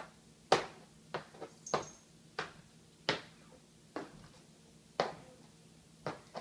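Costume hooves made of Apoxie Sculpt clopping on a wood floor: about ten sharp knocks at an uneven walking pace, the loudest about half a second in.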